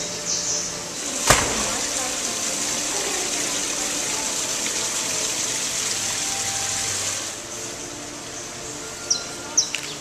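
Steady rushing hiss of running water, starting with a sharp click about a second in and easing off about seven seconds in. A few short, high bird chirps near the end.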